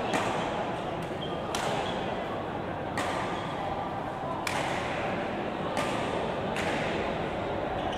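Badminton rally: rackets striking the shuttlecock in sharp cracks about every second and a half, six hits in all, each with a short echo, over a steady background murmur.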